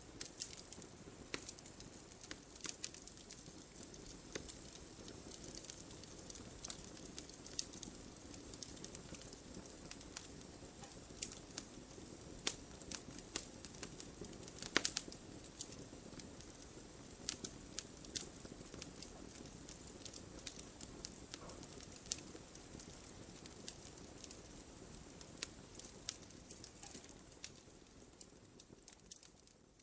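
Wood fire burning in a fireplace: irregular sharp crackles and pops over a steady low hiss of the flames, with one louder pop about halfway through.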